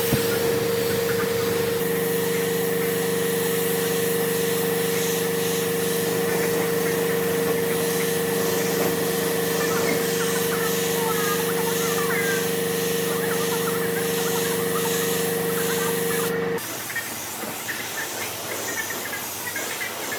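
A power tool's motor running at a steady speed with a hiss over it, then cutting off abruptly about sixteen and a half seconds in; a quieter, rougher noise follows.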